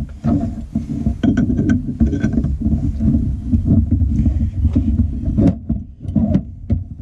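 Drilling and tapping 1/8 NPT holes in a turbocharger housing: a dense, uneven low rumble of tool work broken by irregular clicks and knocks.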